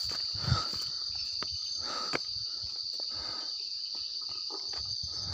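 Crickets trilling steadily on one high pitch, with scattered soft thumps and a couple of sharp clicks about half a second and two seconds in.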